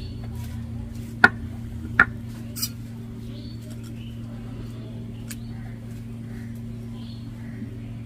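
Stone muller (nora) set down on a flat stone grinding slab (sil): two sharp stone-on-stone knocks about a second apart, a little over a second in, over a steady low hum.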